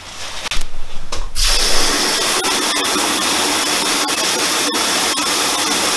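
Garden hose spray nozzle running water into a plastic tub: a steady spraying hiss that starts about a second and a half in.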